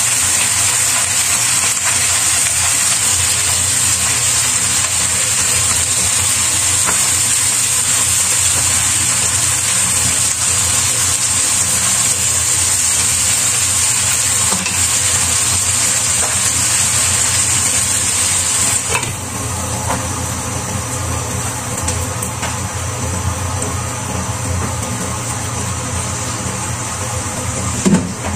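Napa cabbage sizzling in a frying pan over a gas burner, with a steady low hum underneath. The sizzle turns quieter about two-thirds of the way through, once the pan is covered with its glass lid, and a short knock comes near the end.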